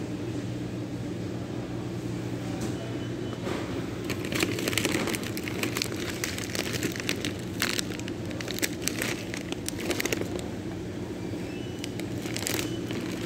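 Plastic snack bag crinkling and crackling as it is handled, in several spells: about four seconds in, again around eight to ten seconds, and near the end. A steady low hum lies underneath.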